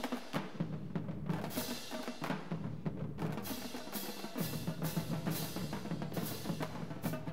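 Drumline playing: snare drums, tenor drums and bass drums in a fast, dense rhythm, with cymbal crashes in several places.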